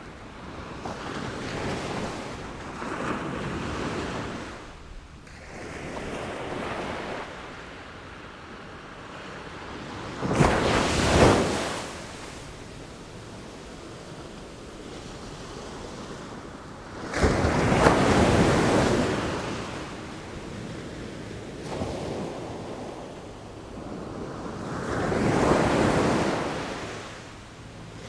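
Sea waves breaking and washing back, rising and falling in surges every several seconds; the three heaviest breakers come about ten seconds in, past the middle, and near the end.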